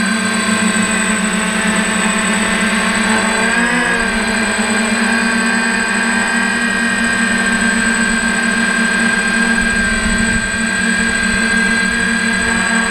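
DJI F550 hexacopter's six electric motors and propellers whirring steadily in flight, heard from a camera mounted on the frame. Their pitch wavers briefly about four seconds in, then settles again.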